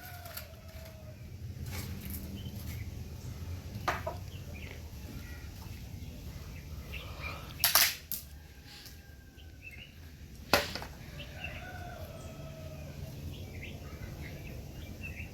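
A few sharp knocks: one about four seconds in, a quick pair near eight seconds, and one more about ten and a half seconds in. Under them run faint bird calls and a low steady rumble.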